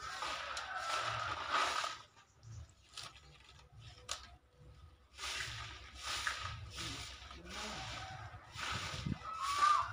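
Stick broom (sapu lidi) sweeping bare, leaf-strewn dirt in short repeated scratchy strokes, with a pause of about three seconds early on before the strokes resume at roughly three every two seconds. A brief gliding chirp sounds near the end.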